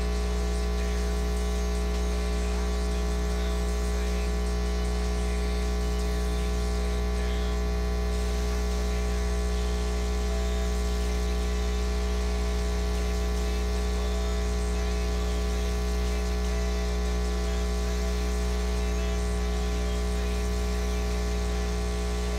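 Steady low electrical hum, like mains hum, with a layer of fainter steady buzzing tones above it and no change or events.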